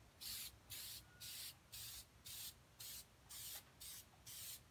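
Aerosol can of spray shellac hissing in short, even bursts, about two a second, as a light finish coat goes on.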